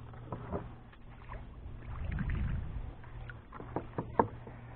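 Water sloshing as a hooked fish is brought alongside a kayak and scooped up in a landing net, with a run of knocks and clicks on the kayak near the end, one sharp knock louder than the rest.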